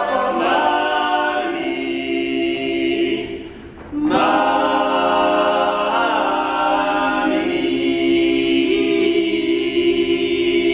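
Male barbershop quartet singing a cappella in four-part harmony, holding chords, with a short break about three and a half seconds in before the next phrase.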